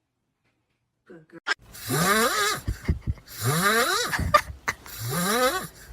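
Loud snoring: three long raspy snores, each rising in pitch, about a second and a half apart, starting after a second of silence.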